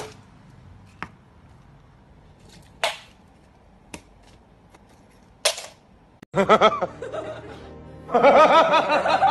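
A handful of short, sharp clicks, spaced a second or more apart, over a quiet background; then, a little past the middle, music with laughter comes in and grows louder near the end.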